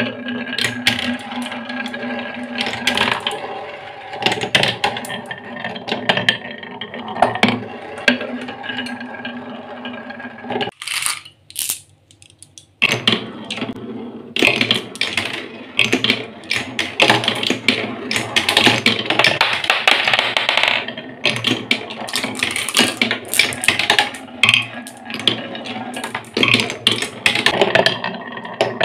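Glass marbles rolling and clattering on a wooden marble run. For about the first ten seconds a marble circles a plywood spiral track with a steady rolling hum and clicks. After a short lull, many clicks and knocks follow as marbles run along wooden rails and bounce down the wavy grooves of a wooden wave slope.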